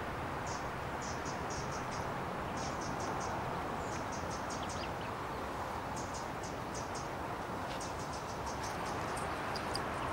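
Steady outdoor background noise with no speech, and clusters of quick, high-pitched ticks or chirps recurring every second or so.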